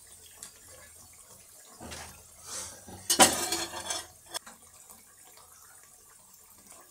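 Water splashing with dishes clinking, loudest in a short burst about three seconds in, then a single sharp clink.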